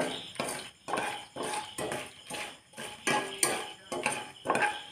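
Metal skimmer stirring and knocking against a nonstick kadai, about two to three clacks a second, as dried red chillies fry in oil.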